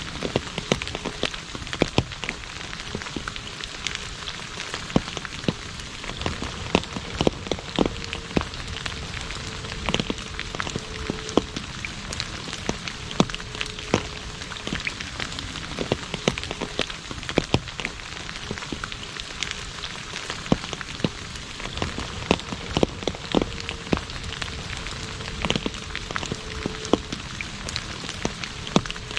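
Steady rain falling on an asphalt road: an even hiss with frequent, irregular sharp drop strikes close by.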